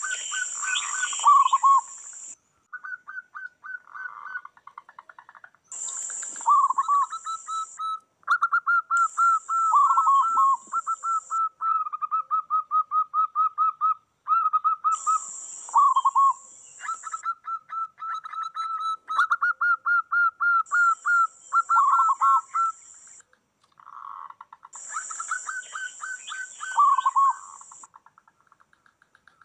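Zebra doves (perkutut) cooing, their rapid staccato trilled coos following and overlapping one another over and over. A high-pitched hissy sound comes in short bursts of a second or two between them.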